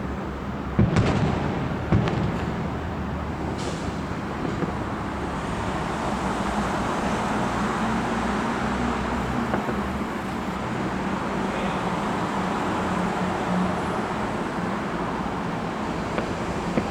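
Fireworks going off with three sharp bangs within the first few seconds, followed by a steady, even background noise with a low hum.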